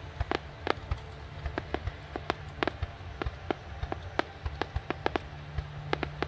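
Fireworks going off: a run of sharp, irregular cracks and pops, two to four a second, over a steady low background rumble.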